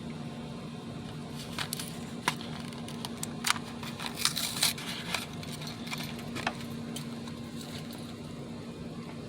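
Scattered light clicks and crackles from handling the new turn-signal bulb, with a cluster of them midway, over a steady low hum.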